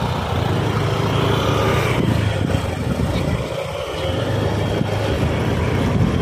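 Small two-wheeler engine running steadily on the move, easing off briefly about three and a half seconds in.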